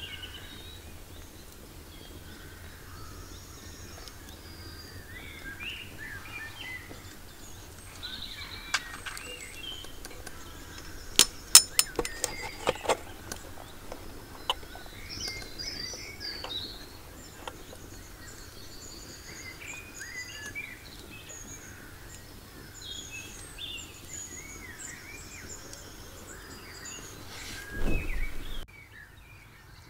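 Small woodland birds chirping and singing. About a third of the way in, a quick run of sharp clicks comes from a kerosene hurricane lantern as it is worked by hand to light it. A short louder rustle follows near the end.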